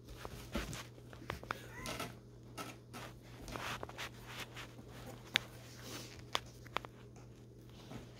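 Faint scattered taps, scrapes and clicks of a cat's paws and claws on a taped cardboard box, the sharpest a little past halfway, over a steady low hum.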